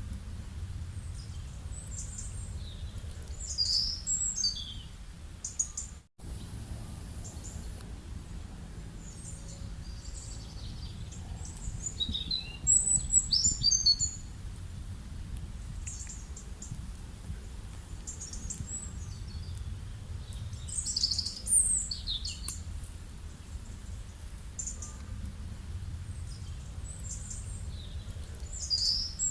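Birds chirping and calling in short high phrases with quick falling sweeps, returning every several seconds and loudest about halfway through, over a steady low rumble of outdoor ambience. The sound drops out for an instant about six seconds in.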